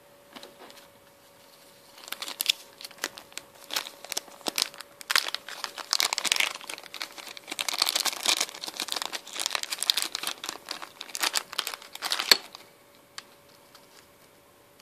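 Thin clear plastic coin bags and flips crinkling and crackling as they are handled, a dense run of sharp crackles that starts about two seconds in and stops abruptly about twelve seconds in.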